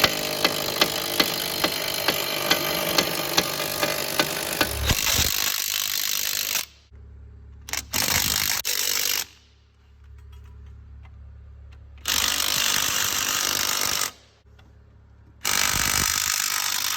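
Impact wrench hammering on a snow-plow cutting-edge bolt, in a long run of about five seconds with a regular click about twice a second, then three shorter bursts. A low steady hum fills the gaps between bursts.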